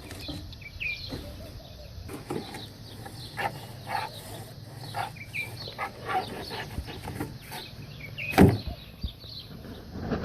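Short bird calls and scattered clicks and knocks, with one loud thump a little past eight seconds in.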